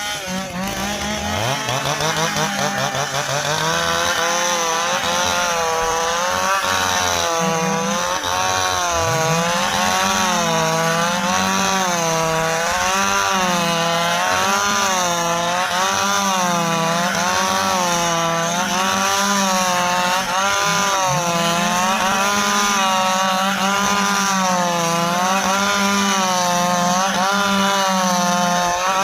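Stihl two-stroke chainsaw at high throttle sawing through dry ipê hardwood. The engine pitch climbs over the first couple of seconds, then rises and falls roughly every second and a half as the chain bites and frees in the cut.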